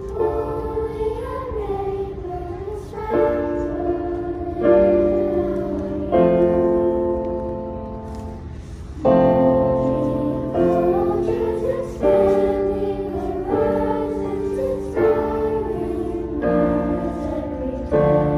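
Children's choir singing with piano accompaniment. The piano strikes a new chord about every second and a half, each one fading before the next, under a wavering sung melody.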